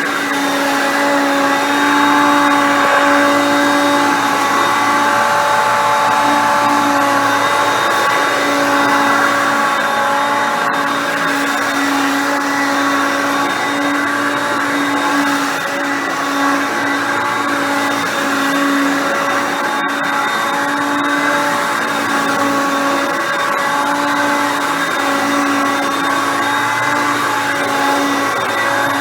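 Hoover Concept Two upright vacuum cleaner running continuously, its 5.6 amp motor giving a steady whine made of several fixed tones, the lowest of which swells and dips unevenly.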